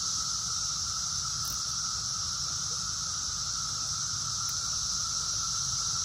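Chorus of Brood X periodical cicadas: a continuous, even, high buzzing drone with a lower steady hum beneath it.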